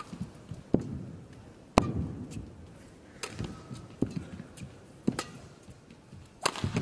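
Badminton rally: rackets striking the shuttlecock in sharp single cracks about once a second, the loudest about two seconds in.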